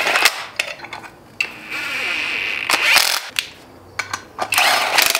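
Cordless drill-driver running motor mount bolts into the engine block in short stop-start bursts. The motor whine dips in pitch as a bolt draws tight, and there are a few sharp clicks between runs.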